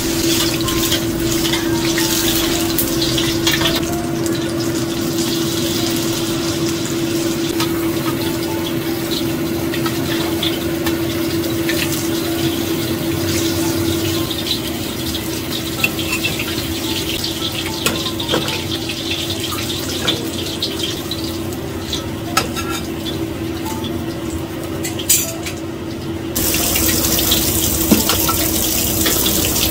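Water running from a kitchen sink tap, with scattered clinks of dishes or utensils over a steady hum. The water gets louder near the end.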